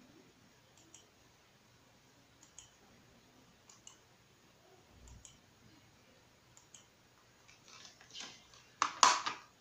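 Faint clicks of a computer mouse button, a quick press and release every second or so, as the mouse works a DVR menu. Near the end comes a louder burst of noise with a sharp click, the loudest sound.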